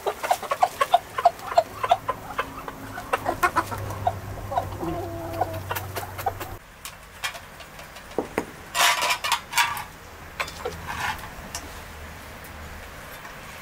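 Chickens clucking: a quick run of short calls over the first few seconds, quieter calls after, and a louder noisy burst about nine seconds in.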